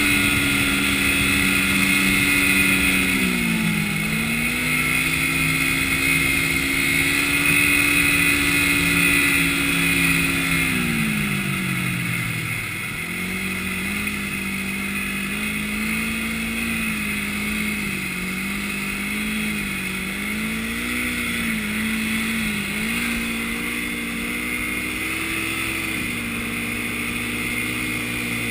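Yamaha snowmobile engine running under way, its pitch dipping and rising with the throttle: one dip a few seconds in, a longer fall near the middle, then a run of short rises and falls before it settles.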